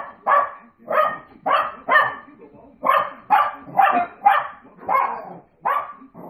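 Two small dogs barking repeatedly and excitedly at dogs on a television screen: about ten sharp barks, two or so a second, with a couple of short pauses.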